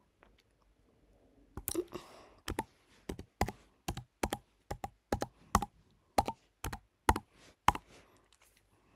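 Typing on a computer keyboard: a run of separate keystroke clicks, about three a second, starting after a near-silent first second and a half.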